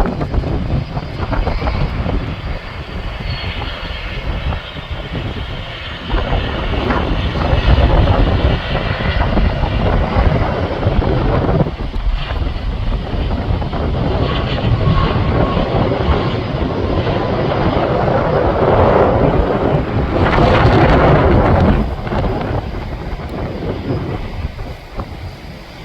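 Jet aircraft engines running with a loud, deep rumble and wind buffeting the microphone. A faint falling whine sounds in the first few seconds, and the noise swells louder about twenty seconds in, then drops off.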